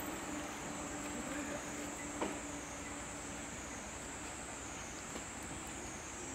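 Insects droning at a steady high pitch, with a faint low hum and a single sharp click about two seconds in.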